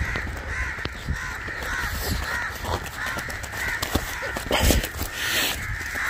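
Crows cawing over and over, with footsteps and rustling in dry grass and a few low thumps.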